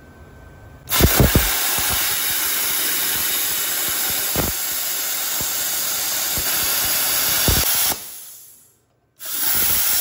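Plasma cutter arc hissing as it cuts through a steel bar, set to 50 amps. It starts about a second in with a few crackles, runs steadily for about seven seconds, dies away, then fires again briefly near the end.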